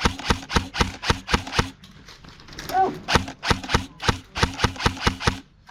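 Airsoft gun fired in quick semi-automatic shots, about four to five a second, in two strings with a pause of about a second between them.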